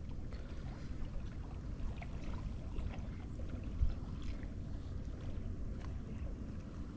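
Steady low rumble of water and wind around a small boat on open water, with faint scattered knocks and one louder knock near the middle.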